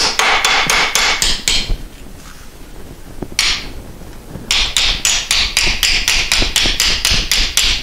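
Hammer blows on a small sheet-steel patch held over a round form in a bench vise, a quick run of ringing metallic strikes about four or five a second. They stop about two seconds in, with one lone blow in the gap, then resume. The patch is being creased and bent into a curved floor-pan repair piece.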